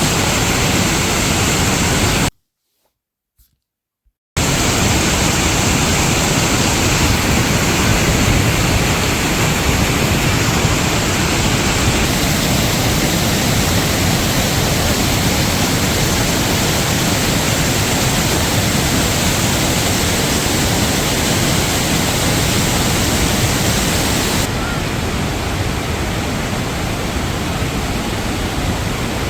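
The Rhine Falls rushing: a loud, steady roar of falling water. About two seconds in it cuts to silence for two seconds, then returns, a little quieter and duller near the end.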